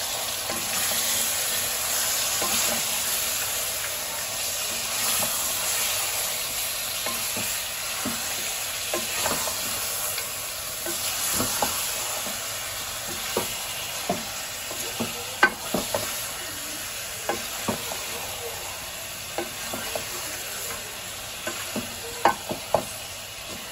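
Chunks of raw mutton sizzling in hot oil and onions in a metal pressure-cooker pot, stirred with a wooden spoon. The spoon knocks against the pot now and then, more often in the second half.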